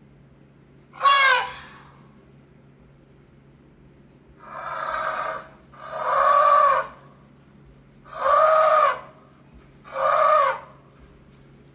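Recorded animal calls played as a sound effect: one short call about a second in, then four longer calls of about a second each, their pitch rising and falling in an arch.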